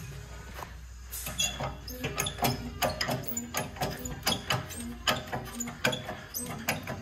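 Irregular sharp knocks and clicks of tools working on metal, starting about a second in, over a steady low hum, as the worn silentbloc bushings are worked out of BMW E36 rear suspension parts.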